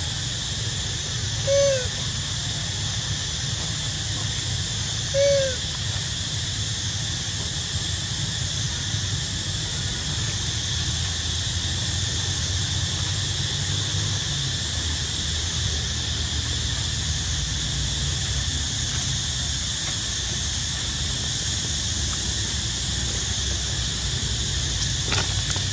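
Steady outdoor background hiss with a low rumble underneath. Two short calls that rise and fall come in the first six seconds.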